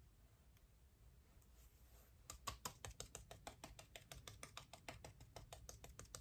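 A cushion foundation puff patted quickly against the face: a fast, even run of soft taps, several a second, starting a little after two seconds in.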